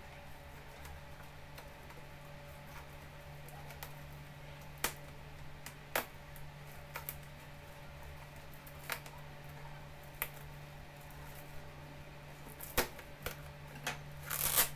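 Scattered taps and clicks of hands handling a tape-wrapped cardboard parcel, then near the end a short rasping burst as scissors cut into the plastic packing tape. A steady low hum runs underneath.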